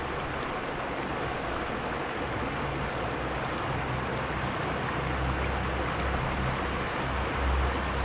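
Steady rush of river water flowing over its bed, an even wash of sound. A low rumble comes in underneath from about halfway through and swells toward the end.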